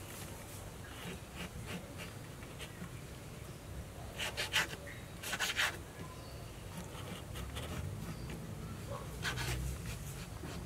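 Knife cutting chicken gizzards on a wooden chopping board: short clusters of knocks and slicing strokes about four, five and a half and nine seconds in, over a low steady hum.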